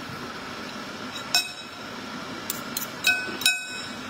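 Metal spoon clinking against a ceramic bowl, about five sharp ringing clinks, the loudest about a second and a half in and twice near the end, over a steady background hum.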